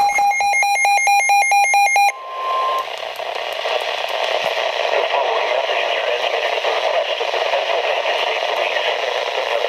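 Emergency alert radio beeping rapidly for about two seconds, then a short steady alert tone, then hissy radio broadcast audio carrying the warning.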